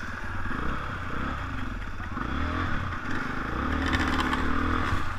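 Dirt bike engines running at low speed, their pitch rising and falling with small throttle changes, then holding steadier near the end.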